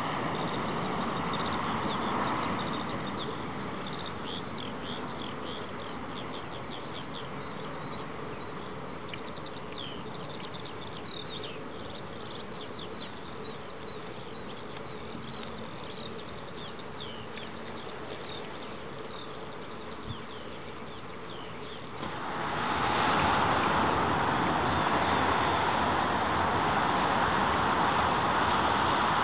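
Boeing 787-8 Dreamliner's jet engines heard from a distance as a steady rushing noise, with many short, high chirps scattered over it. About 22 seconds in, the rushing becomes abruptly louder.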